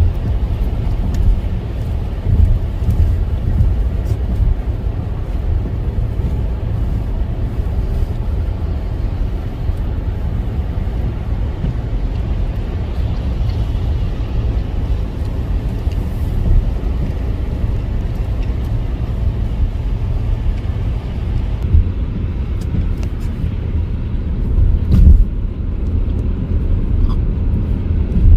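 Steady low rumble of a car driving on a snow-covered expressway, heard from inside the cabin: tyre and engine noise with a louder swell near the end.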